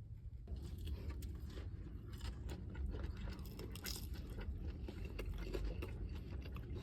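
A person biting and chewing crunchy food close to the microphone: a dense run of crisp crunches that starts about half a second in.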